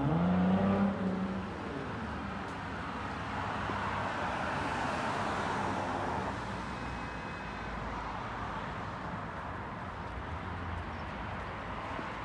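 Road traffic passing. Near the start a vehicle accelerates, its engine note rising, and then fades. Around the middle a passing car's tyre and engine noise swells and dies away.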